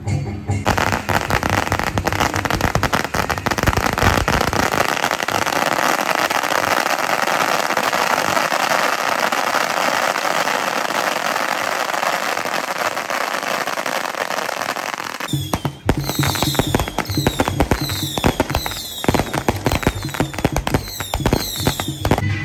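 A string of firecrackers going off in a fast, dense crackle for about fifteen seconds. It then thins to separate sharp bangs with repeated high chirping whistles, and music comes back in underneath.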